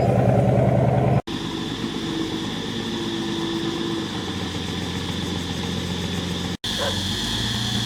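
Heavy diesel engine of construction machinery running steadily. The sound breaks off abruptly about a second in and again near the end, picking up each time with a slightly different engine tone.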